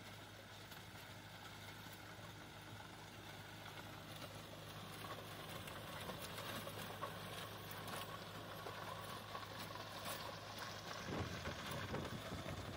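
Sonalika Worldtrac 75 Rx tractor's 3707 cc diesel engine running steadily under load, pulling a Maschio rotavator. The rotavator's blades churn and rattle through dry soil. The sound grows louder, with a heavier low rumble near the end.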